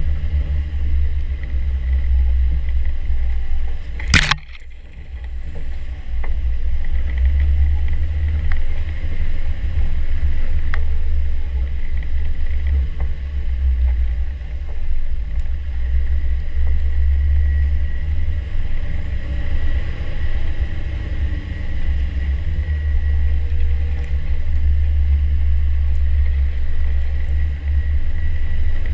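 Land Rover Defender 90 driving a snowy trail: a steady low rumble of engine and drivetrain, with a single sharp knock about four seconds in.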